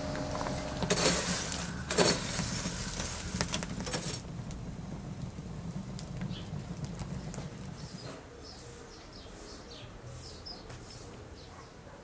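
Boiling water bubbling and splashing as a wire skimmer lifts potatoes out of the pot, with two louder splashes about a second apart early in the sound. After about four seconds it turns quieter: wood fire crackling faintly, then short high chirps.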